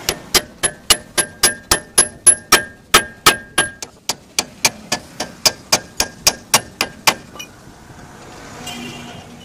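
Hand hammer striking a steel wheel bolt on a truck wheel hub in quick, even blows, about three or four a second, each with a metallic ring, as a broken wheel bolt is driven out. The hammering stops about seven seconds in.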